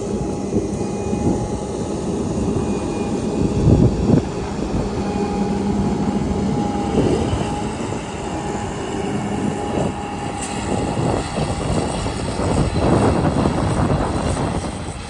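Combine harvester running: a steady mechanical drone with a held whine, and a louder clunk about four seconds in.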